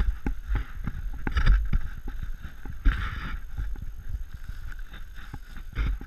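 Footsteps crunching and rustling through dry fallen leaves, an uneven run of steps with the loudest about a second and a half in, about halfway through and near the end.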